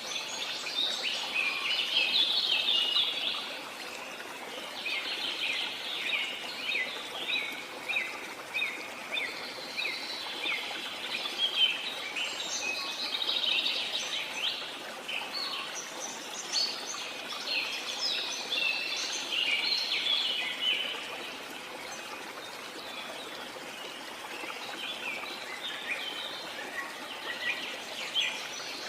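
Many birds chirping and calling in dense, overlapping phrases a few seconds long, over a steady rush of water.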